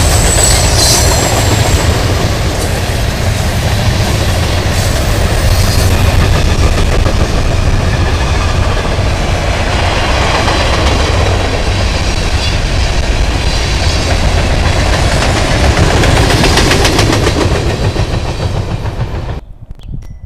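Freight train cars rolling past close by: a steady, loud rumble of steel wheels clacking over the rail joints, with a brief high squeal about a second in. The sound cuts off suddenly near the end.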